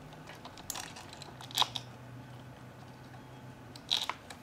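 Small clicks and snaps of a capacitor's wire leads being worked in and out of the spring terminals of an Elenco Electronic Playground 130 kit. The sharpest snap comes about one and a half seconds in, and a quick cluster of clicks comes near the end.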